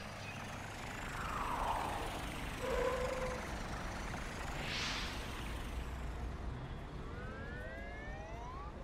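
Cartoon truck engine humming steadily, with whooshes as the truck drives past. Near the end comes a rising siren-like wail.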